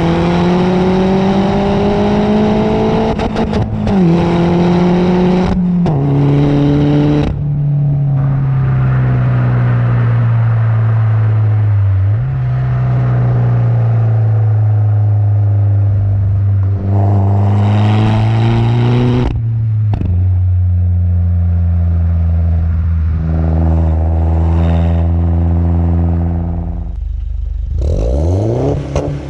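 Peugeot 208 GTi's turbocharged 1.6-litre four-cylinder engine and exhaust pulling through the gears, the pitch climbing and then dropping at each gear change, about 4, 6, 7 and 19 seconds in. It holds a steady, slowly falling note in between and drops off sharply with a rapid rise and fall near the end.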